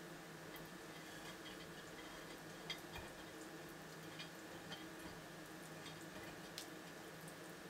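Quiet room tone: a steady low hum with scattered faint ticks and clicks, the clearest about three seconds in.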